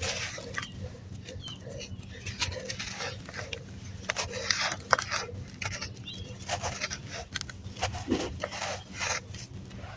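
Dry red sand or dirt being crunched and crumbled in irregular sharp crackles, with a bird cooing softly behind it.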